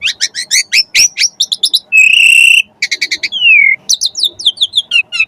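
Javan pied starling (jalak suren) singing a loud, varied song: a fast run of short sharp notes, a harsh buzzy note about two seconds in, a clear falling whistle, then a string of quick downward-sweeping notes.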